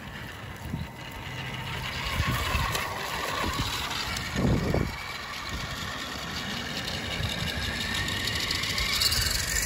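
Electric drive motor and gears of a radio-controlled toy car running as it drives over grass and asphalt, a steady whine that rises in pitch near the end. There is a brief low rumble of noise about halfway through.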